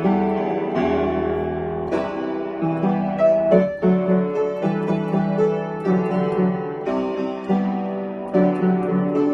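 Solo piano playing, a melody of held and repeated notes over lower notes, with no singing.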